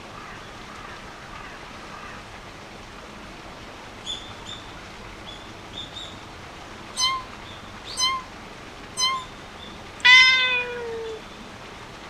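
Three short identical beeps exactly a second apart, like a countdown timer, then a louder, longer meow that falls in pitch, all over a steady background hiss. A few faint high chirps come a second or two before the beeps.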